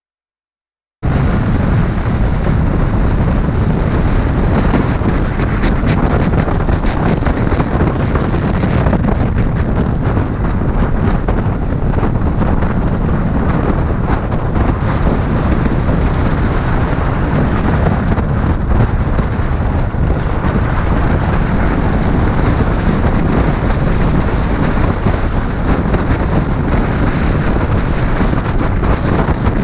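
Loud, steady rumbling wind buffeting on the microphone, as from a camera on a moving motorcycle, starting abruptly about a second in.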